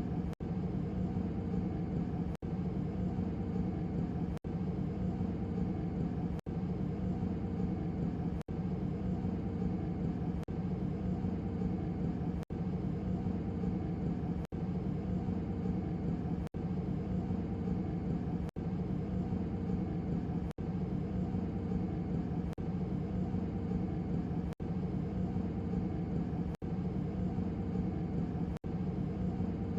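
Hotel hallway ambience: a steady low hum, cut by very brief gaps about every two seconds.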